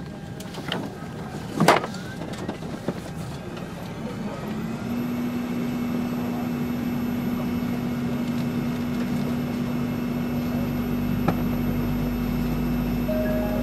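Airbus A380 cabin noise at the gate: a few knocks and a sharp click early on, then a steady humming drone comes in about four and a half seconds in, with a low rumble building beneath it.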